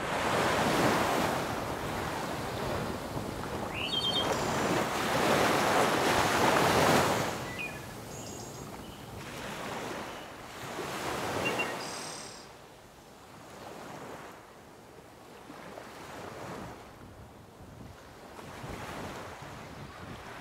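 Sea waves washing in and breaking on a shore, swelling and ebbing in long surges, loudest in the first seven seconds, with some wind. A few short bird chirps come through in the first half.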